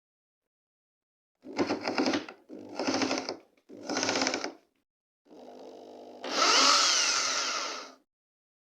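Makita 6413 electric drill run in three short bursts on the trigger, then run softly and brought up to full speed for about two seconds before it stops. The freshly repaired drill is running normally.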